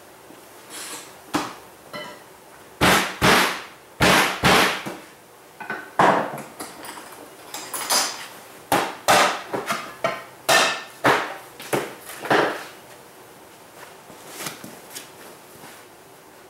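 A series of sharp knocks and bangs, about twenty of them, irregular and often in quick pairs about half a second apart, dying away about thirteen seconds in.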